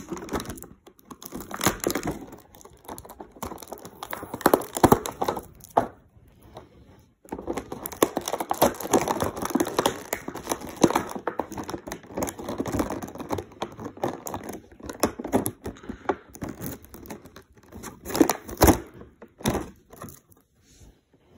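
Clear plastic packaging crinkling and crackling as it is handled and pulled apart, with scattered knocks and thunks. There is a brief pause about six seconds in.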